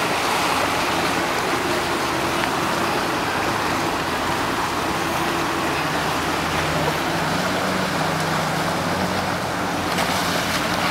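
Outboard motors of boats nearby running with a low, steady hum that shifts slightly in pitch around the middle, over a constant rushing of water.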